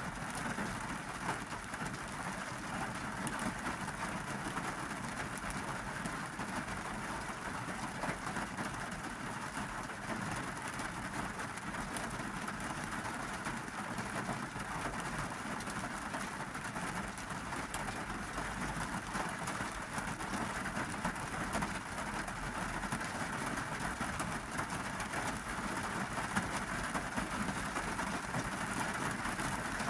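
Monsoon rain falling on a car, heard from inside the cabin: a dense, steady patter of drops on the roof and glass.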